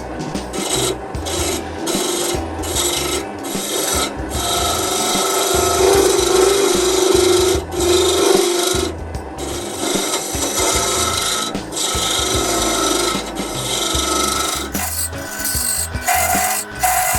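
A rasp scraping wood in repeated strokes with short pauses between them, shaping a wooden pulley.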